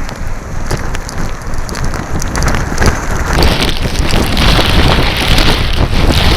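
Typhoon wind and heavy rain, with gusts buffeting the microphone into a deep rumble. The hiss grows louder about three seconds in as a stronger gust comes through.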